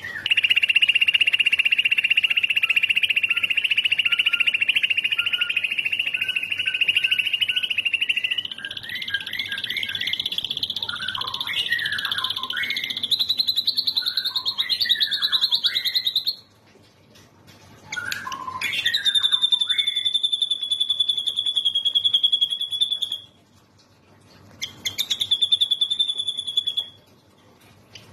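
Birdsong recording of the kind used to train white-rumped shamas: a long, high, very rapid trill held for many seconds, climbing slightly in pitch, with short whistled notes woven under it. It breaks off twice and resumes after short pauses.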